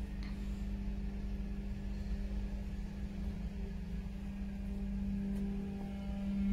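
Steady mechanical hum at one constant pitch over a low rumble, growing slightly louder near the end.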